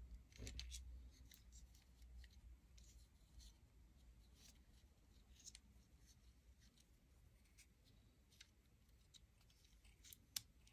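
Near silence with a faint low hum, broken by scattered faint clicks and ticks of small RC car parts and screws being handled; one sharper click near the end.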